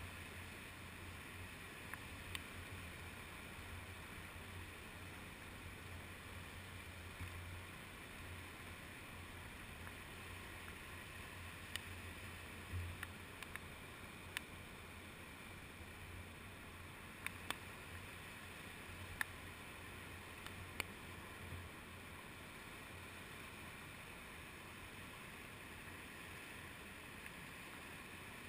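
Sea waves washing up the beach, heard faint and muffled through a GoPro's waterproof housing, with a dozen or so sharp ticks scattered through it.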